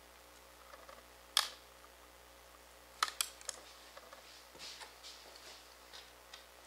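Small metal hardware and acrylic parts being handled: a sharp click about a second and a half in, a quick cluster of clicks around three seconds, then softer scattered rattles.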